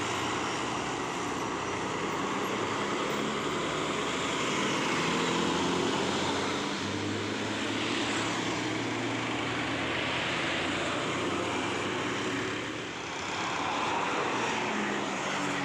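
Heavy road traffic on an uphill road: a bus's diesel engine running under load with tyre and road noise, steady apart from a brief dip about thirteen seconds in.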